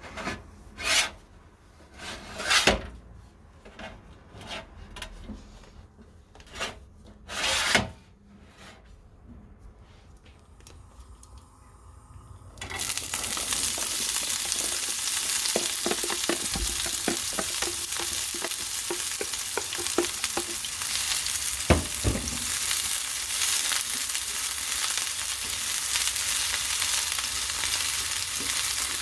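A few separate knocks and clicks of cookware and utensils, then, a little under halfway through, food goes into a hot frying pan and sizzles loudly and steadily, with light clicks of a utensil stirring it.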